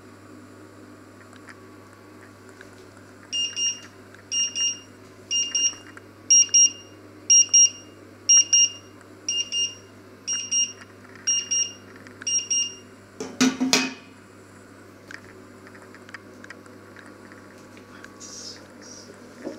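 Electronic kitchen beeper sounding high double beeps about once a second for roughly ten seconds, then a single loud clatter just after they stop. A low steady hum runs underneath.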